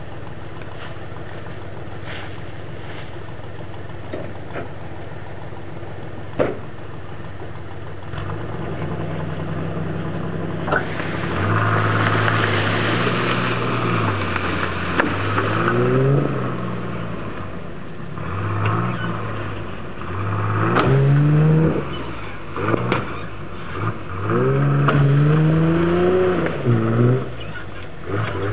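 1989 Isuzu Trooper's engine idling steadily with a couple of sharp knocks. From about ten seconds in it revs up and down again and again as the SUV strains to drag a downed tree, with a rush of tyres churning through dry leaves and dirt.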